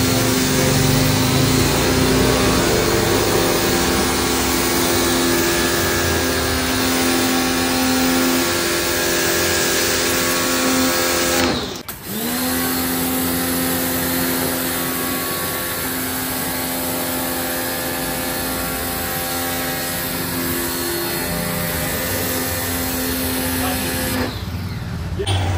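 Electric high-pressure washer running, its motor hum under the hiss of the water jet spraying a car's doors and running board. About halfway through the motor stops for a moment and starts again, and its hum stops near the end.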